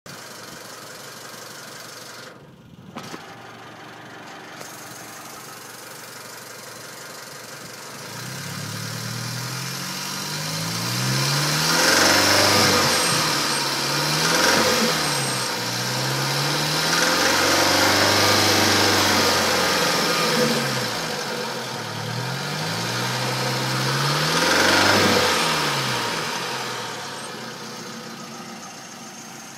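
Car engine idling, then revved up and down several times, one rev held for a few seconds, with a knock that comes in at a certain rpm. The owner suspects a spun bearing.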